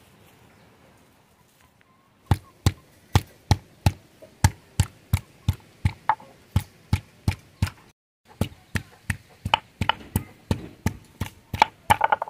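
A round grinding stone knocking on a flat stone grinding slab (sil-batta), pounding spices with even strikes about three a second. The strikes start about two seconds in, stop briefly after eight seconds, then start again.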